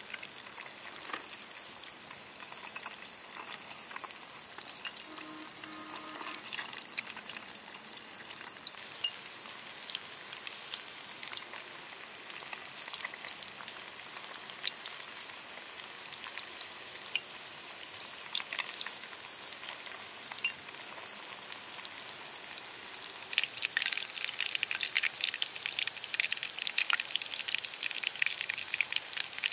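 Fish-paste sticks on lemongrass skewers deep-frying in hot oil: a steady sizzle full of fine crackles, growing louder and denser for the last several seconds.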